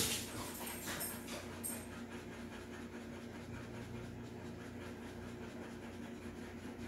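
Anxious dog panting, a few quick breaths in the first two seconds before it fades out; the panting is a sign of stress.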